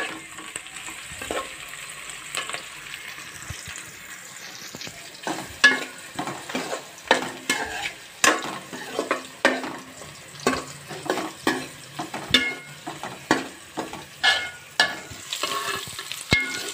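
Steel spoon scraping and clinking against a metal pot while stirring garlic, onion and green chillies frying in hot oil, over a steady sizzle. The strokes are sparse at first and come about once or twice a second from about five seconds in.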